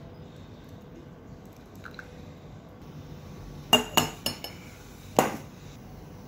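Hot water pouring from an electric kettle into a stainless-steel drip filter on a mug, then a run of sharp metallic clinks about two-thirds of the way in: four quick ones and a last one a moment later, as the metal filter knocks against the cup.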